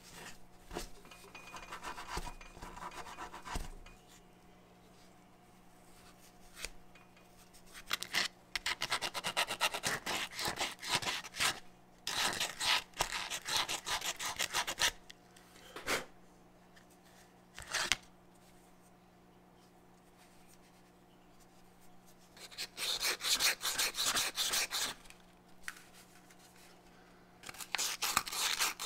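Hand-rubbing the inside of a small rusty metal cone with coarse steel wool and then 220-grit sandpaper, to take off surface rust. It comes in several spells of fast back-and-forth scratchy strokes with short pauses between.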